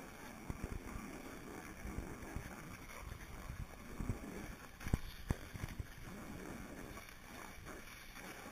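Steady scraping rush of sliding downhill over groomed, hard-packed snow, heard through the camera, with frequent small knocks and two sharper knocks about five seconds in.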